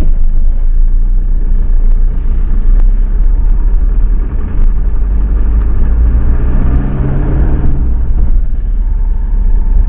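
Van driving, heard from inside the cab: a steady low rumble of engine and road noise, with the engine note growing stronger for a couple of seconds about six seconds in.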